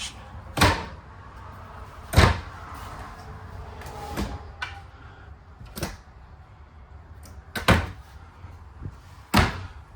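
Cabinet doors in an RV being opened and shut: a series of about six separate knocks and bangs, the loudest about two seconds in.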